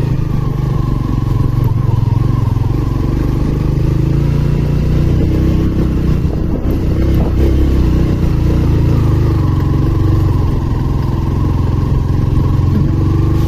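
Motorcycle engine running steadily while the bike is ridden along a rough dirt trail, heard from the rider's seat.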